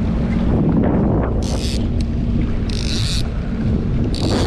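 Jet ski engine running steadily with heavy wind buffeting on the microphone, broken three times by short splashes of spray as the hull meets the chop.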